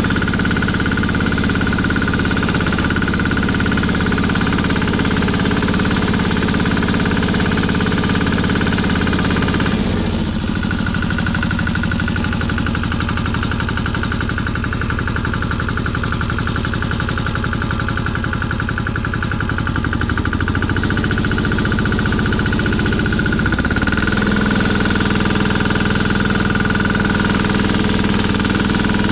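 Pasquali walking tractor's single-cylinder engine running steadily with its rotary tiller, working the soil. About ten seconds in the engine note changes and eases a little as the tiller leaves the worked ground. It returns to its steady loaded note about twenty-four seconds in.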